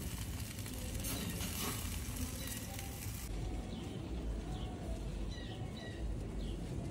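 Chicken and ribs sizzling over hot charcoal on an open grill. About three seconds in the sizzle cuts off sharply as the grill lid is shut.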